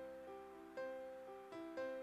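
Background music: a plucked-string tune, a steady run of picked notes, each ringing out and fading.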